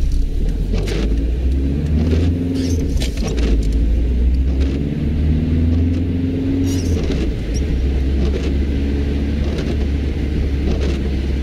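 Car cabin while driving in the rain: a steady low engine and road rumble with a humming tone over it, and now and then the short swish of the windscreen wipers across wet glass.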